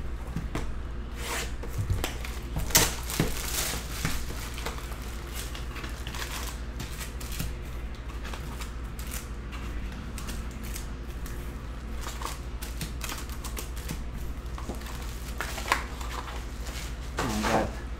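A 2022 Topps Chrome Update hobby box being unwrapped and opened, and its foil card packs handled and stacked: plastic wrap crinkling and tearing, cardboard flaps, and packs rustling and clicking against each other. The loudest crinkling and tearing comes about two to four seconds in.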